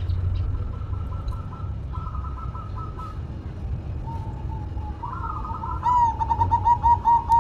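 Zebra dove (perkutut) cooing: a few soft coos, then from about six seconds a fast run of short staccato coo notes, about five a second.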